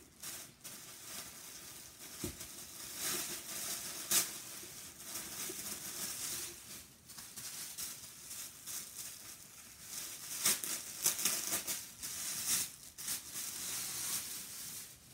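Paper wrapping and fabric rustling and crinkling as items are pulled out and unwrapped by hand, in irregular bursts with sharper crackles around four seconds in and again between ten and thirteen seconds.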